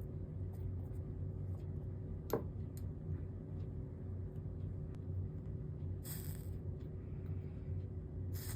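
Tack-soldering copper-foiled stained glass: a steady low hum, one sharp click about two seconds in, and two brief hisses near the end as solder is dabbed onto the joints.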